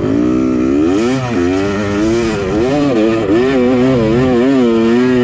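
Two-stroke Yamaha dirt bike engine under load in sand, its pitch rising and falling over and over as the throttle is worked on and off.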